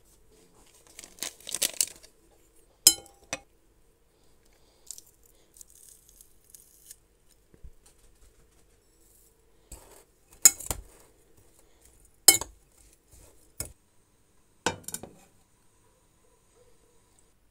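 Kitchen food-prep sounds: dry spice shaken from a paper packet onto grated carrot in a glass bowl, then a series of separate sharp clinks and knocks of utensils against glass.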